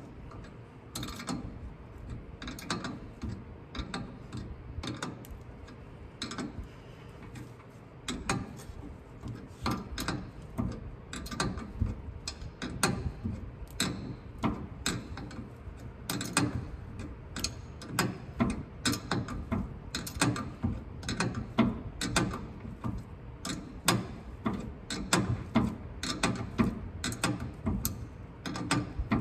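Hand ratchet wrench clicking in repeated runs as nuts on the drive shaft's U-joint straps are tightened.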